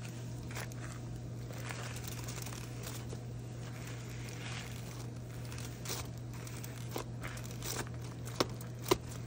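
Aluminium foil crinkling and rustling under a hand pressing a raw burger patty flat, with a couple of sharp clicks near the end. A steady low hum runs underneath.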